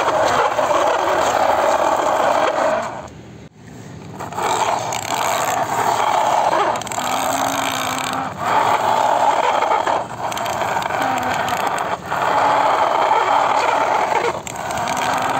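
Plastic toy vehicles pushed by hand through sand on concrete, their wheels grinding and scraping through the grit in pushes of a couple of seconds each, with short breaks between them and a longer pause about three seconds in.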